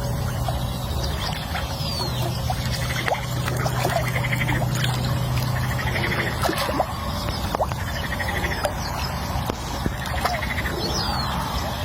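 Short trilling animal calls repeating about every second and a half over outdoor ambience, with scattered clicks and a few high falling chirps; a steady low hum runs underneath and stops about halfway through.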